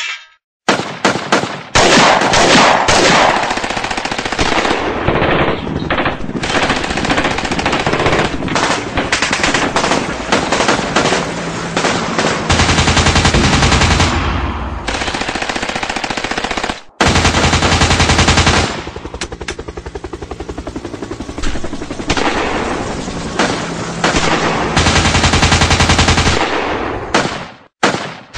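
Gunfight sound effect: rapid automatic-weapon fire in long, nearly unbroken bursts mixed with single shots, stopping briefly twice.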